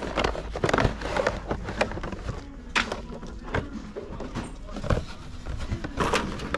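A cardboard Rotadent toothbrush box and its plastic bag being handled and turned over: irregular rustles and small knocks, one after another.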